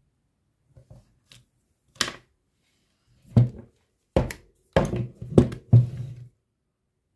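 A series of about eight sharp knocks and clacks of hard objects being handled, a few faint ones at first and louder ones in the second half.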